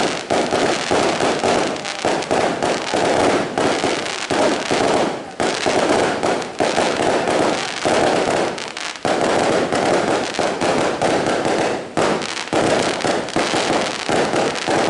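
Consumer fireworks going off in quick succession from a multi-shot cake, the shots popping and bursting overhead with dense crackling and a few brief lulls.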